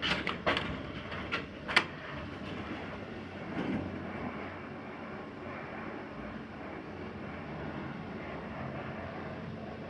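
A few sharp clicks and knocks in the first two seconds, then the steady running noise of a Mitsubishi ACCEL-series rope elevator car travelling between floors.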